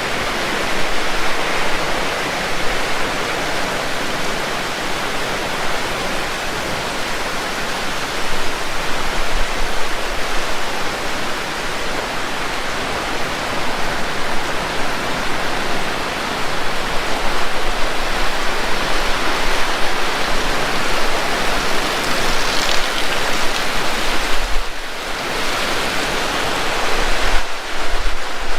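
Heavy tropical rain pouring down: a loud, dense, steady hiss of falling drops.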